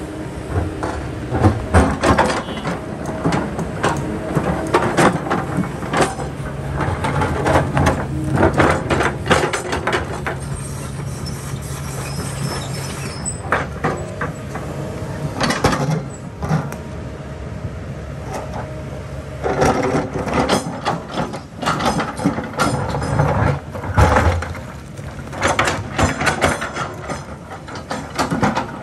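Kobelco hydraulic excavator at work: its diesel engine runs steadily under load while the bucket and tracks clank and scrape repeatedly against rock and stones.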